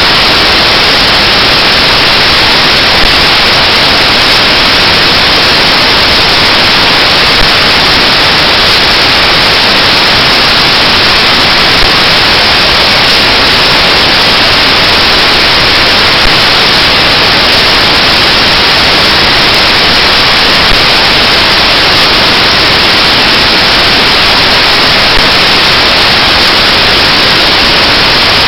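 Loud, steady static hiss, even and unchanging, with no other sound heard through it.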